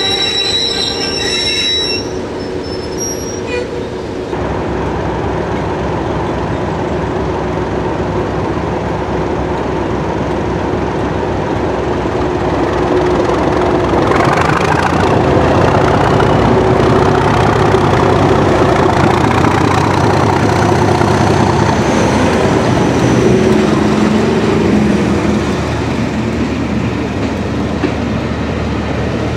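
A high wheel squeal in the first couple of seconds, then a Class 37 diesel locomotive approaching and passing with its English Electric V12 engine running, louder from about halfway and easing near the end as the coaches roll by.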